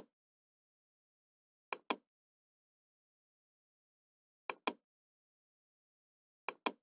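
Computer mouse button clicking, each click a quick press-and-release pair. The pairs come three times, about two seconds apart.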